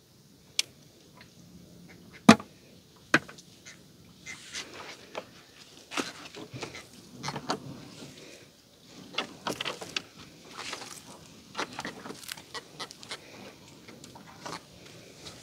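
Gill net being hauled aboard a small boat: a few sharp knocks, the loudest about two seconds in, then a busy run of rustling and clattering.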